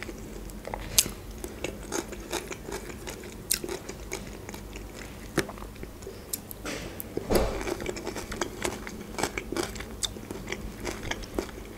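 Close-up chewing and wet mouth clicks of a person eating, with soft crunches from cucumber salad.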